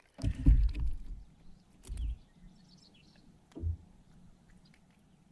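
A few dull, low thumps and bumps: the loudest cluster is about half a second in, with more near two seconds and three and a half seconds in. Faint bird chirps are heard between them.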